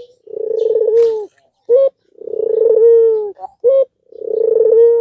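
Albino puter dove (domestic collared dove) cooing. It gives three long, low, rolling coos, each followed by one or two short clipped notes, in a steady rhythm about every two seconds.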